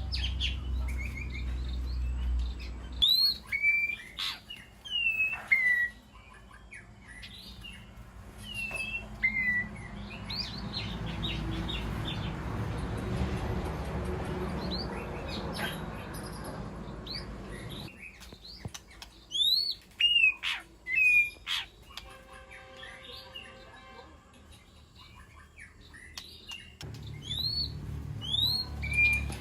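White-rumped shama singing: short phrases of clear whistled notes that slide up and down, with pauses between them. A low rumble is heard at the start and again near the end.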